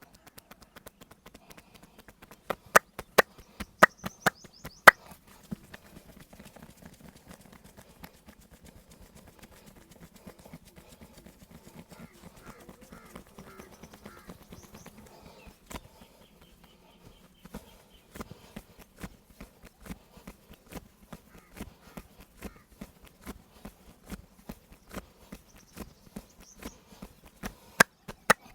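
Hands slapping and tapping on a person's body during a massage: a quick run of loud, sharp slaps a few seconds in, then softer, even taps about two a second through the second half, with loud slaps again near the end.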